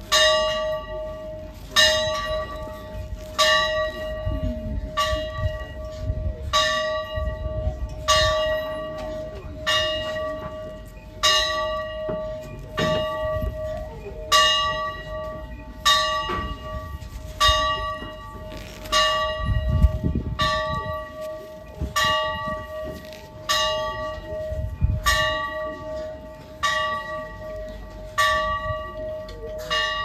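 A single church bell tolling steadily, about one stroke every second and a half. Each stroke is the same pitch and rings on, fading, until the next.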